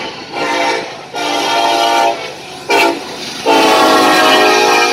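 A Union Pacific diesel locomotive's multi-chime air horn blowing the grade-crossing signal as it approaches: two long blasts, a short one, then a long one held to the end. The train's running noise can be heard in the gaps between blasts.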